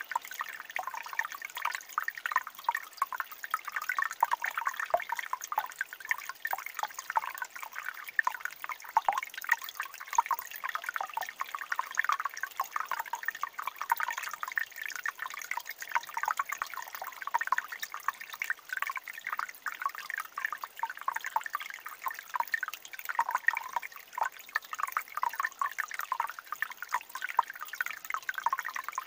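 Water babbling in a small stream or trickle: a dense, irregular patter of little splashes and drips at a steady level.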